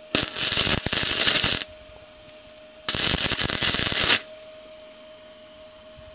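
MIG welder arc crackling and sputtering in two bursts of about a second and a half each, tack-welding a nut onto the top of a bolt.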